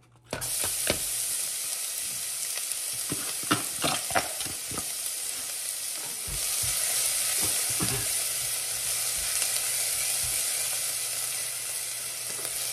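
Chopped onion hitting hot oil in a pot, sizzling suddenly just after the start and then frying with a steady hiss. A silicone spatula stirs it, knocking against the pot now and then.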